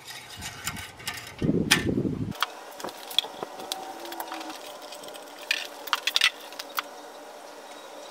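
Muffled handling rumble as the camera is moved and set down, then scattered light clicks and knocks of hands working at the car's open engine bay.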